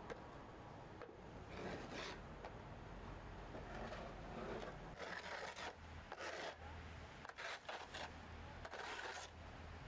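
Irregular short scraping and rubbing strokes, about seven in all, over a steady low rumble.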